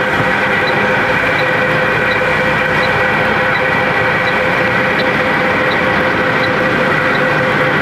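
Steady engine running of a heavy vehicle, heard from inside its cab, with a faint high tick repeating about every three-quarters of a second.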